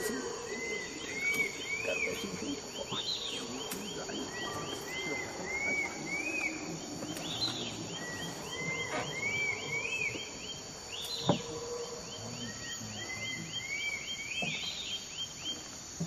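Howler monkeys roaring in the distance as a low rumble, under a bird singing a repeated series of quick rising-and-falling notes, given again every three seconds or so. A single sharp knock comes about eleven seconds in.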